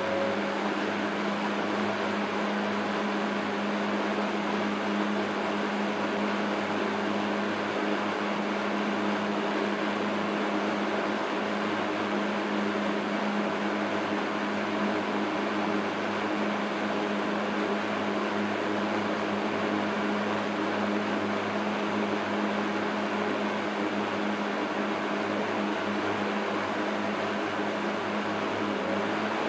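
Vintage 1960s Eskimo model 12106 14-inch box fan, built by McGraw-Edison, running at a constant speed: a steady whir of moving air over a steady motor hum.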